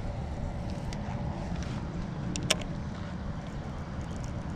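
Wind rumbling steadily on the microphone, with a single sharp click about halfway through.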